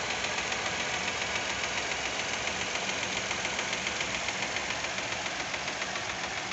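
Fiat Argo's 1.0 Firefly three-cylinder engine idling hot, with a steady, rapid ticking from the top of the engine. The owner calls it lifter (tappet) noise and finds it odd, since the engine has hydraulic lifters.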